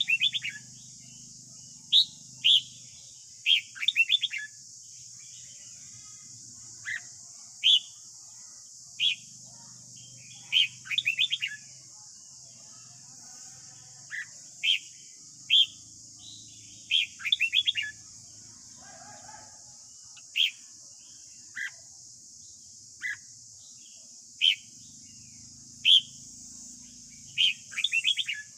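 Red-whiskered bulbul singing its morning song: short, loud whistled notes and quick chattering runs every second or two, over a steady high hiss.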